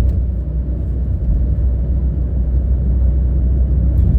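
Steady low rumble of a car on the move, road and wind noise with no distinct events.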